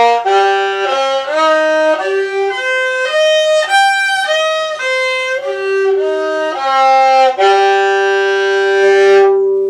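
Violin bowing the closing notes of a G minor scale in first position, one note after another at about two a second, then a long held final note that stops right at the end.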